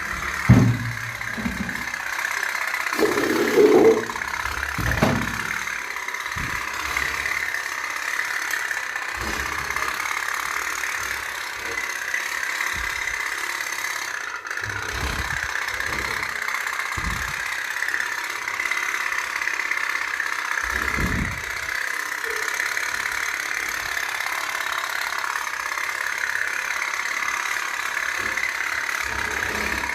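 Toy pop-pop boat running, its small steam engine making a steady, rapid putt-putt rattle, with a few short low knocks in the first few seconds.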